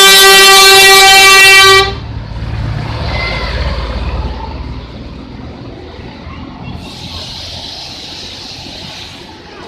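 Bus telolet horn blowing one very loud, steady note for about two seconds. The bus's engine then rumbles low for a few seconds, and a hiss follows near the end.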